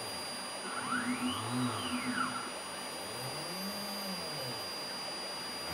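Hobby CNC machine milling a pocket in aspen with a Dremel 1/8-inch bit: the spindle motor runs with a steady whir, while a machine whine rises and falls twice.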